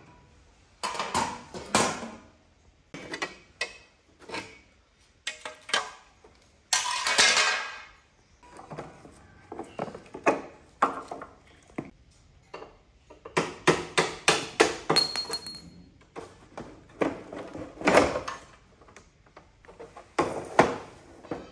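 Rusty steel motorcycle parts being taken off and set down, with a string of metal clanks and knocks and tools working on the frame. There is a longer scraping noise about seven seconds in and a brief squeak about halfway through.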